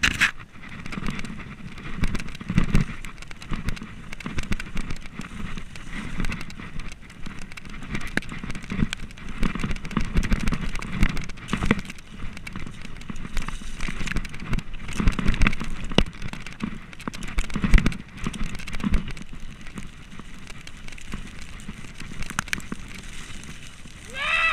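Downhill mountain bike ridden fast over a rough dirt and gravel trail: crackling tyre noise on loose ground, with constant rattling clicks from the bike and irregular thuds over bumps. A short high squeal sounds near the end.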